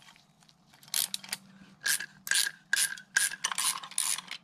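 A diaphragm-spring compressor tool being worked off an automatic-transmission clutch drum: about eight short metallic rasping strokes from a hand tool turning on the tool's threaded shaft, starting about a second in.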